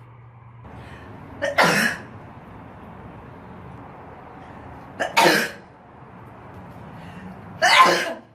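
A person sneezing three times, roughly three seconds apart. Each sneeze is a short lead-in followed by a sharp burst.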